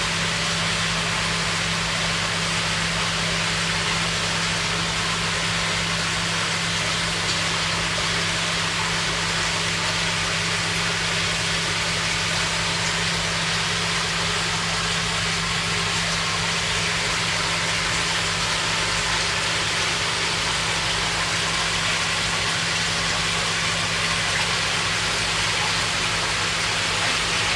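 Steady electric hum under an even hiss, typical of the pump and aeration running on a koi tank.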